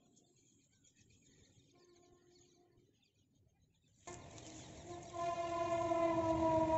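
Train horn: a faint held note around the middle, then a loud, long horn note that starts about four seconds in, swells about a second later and is held.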